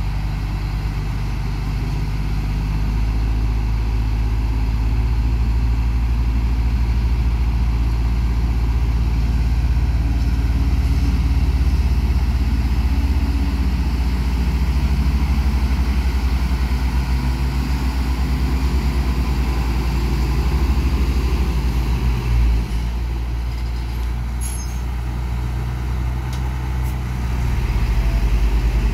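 Dongfeng 8x4 dump truck's diesel engine running under load, a deep steady rumble. There is a single thump about twenty-two seconds in, and near the end the engine grows louder as the loaded tipper body is raised.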